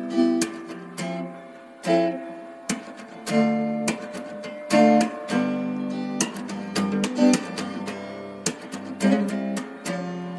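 Background music: acoustic guitar strumming chords in an irregular rhythm.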